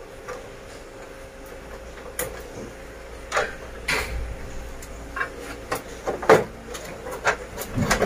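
Hand-handling noises at a split air conditioner indoor unit as its incoming wires are pulled free of the terminal block: scattered clicks, taps and short scrapes of wire and plastic casing, a few louder ones in the middle.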